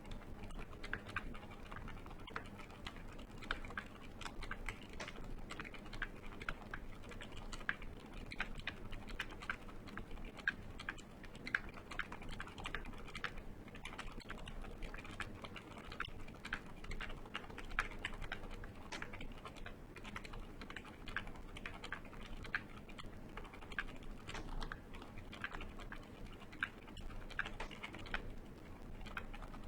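Steady fast typing on a KBD67 MkII mechanical keyboard with lubed Gateron Silent Ink v2 switches, a POM plate and PBT keycaps: a dense run of soft, muted key clacks.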